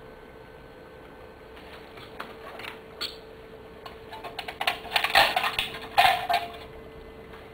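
Metal blade clicking and scraping against an aluminium soda can: scattered ticks at first, then a dense run of loud clicks and scrapes for about two seconds near the end. A steady faint hum runs underneath.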